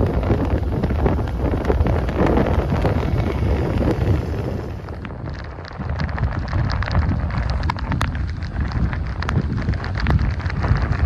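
Wind rumbling on the microphone of a moving two-wheeler. About five seconds in, this cuts to heavy rain: many sharp drop ticks over the low road and wind rumble.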